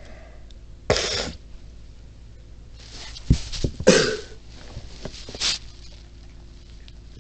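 A person coughing in short bursts, once about a second in, then a cluster of coughs about three to four seconds in and a smaller one later, with a sharp click among them.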